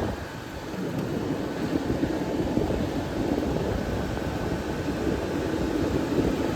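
Vintage window air conditioner running steadily, its blower moving air over the compressor's hum.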